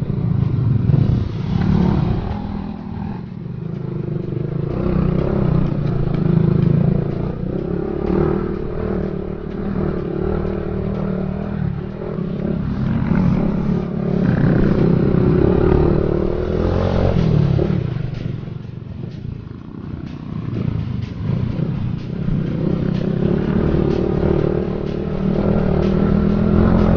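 Honda XRM motorcycle's small single-cylinder four-stroke engine running on a rough, rocky dirt trail, its pitch rising and falling with the throttle, with rattling and clatter from the bike bouncing over stones. It eases off briefly about two-thirds of the way through.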